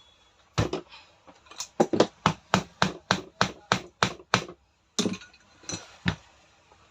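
Hand hammer striking a part during a power-tool repair: a single hit, then a quick run of about a dozen sharp strikes at roughly three a second, then three more separate hits near the end.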